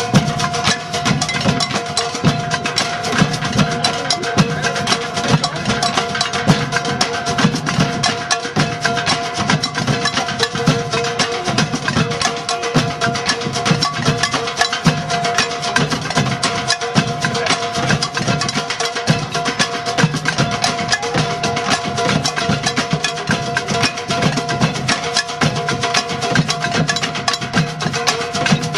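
Percussion music with dense, rapid hits over a steady held tone.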